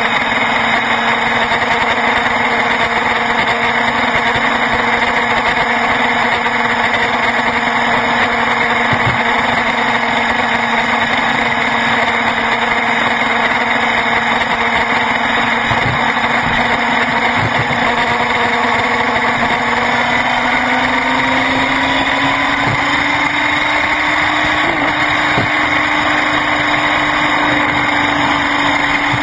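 Motorcycle engine running steadily at highway speed, with heavy wind rush. The engine's pitch climbs a little about two-thirds of the way through as the bike speeds up.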